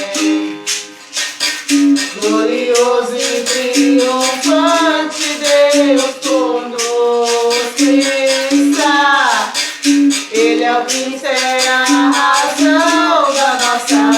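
Berimbau with caxixi rattle playing a steady repeating rhythm while a voice sings a slow hymn melody in long, drawn-out notes.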